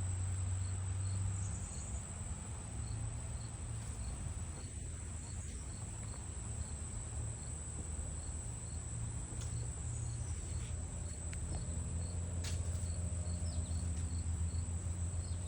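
Crickets chirping: a steady high trill with a fainter chirp repeating about twice a second, over a low steady hum.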